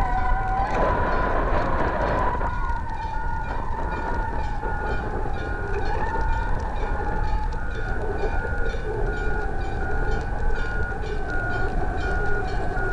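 Wind rushing over the microphone of a kite-borne camera. Above it are a steady high tone that wavers slowly in pitch and a higher tone that pulses on and off about one and a half times a second.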